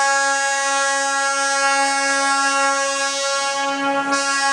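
Train horn held in one long, steady blast while the train rolls slowly into the station.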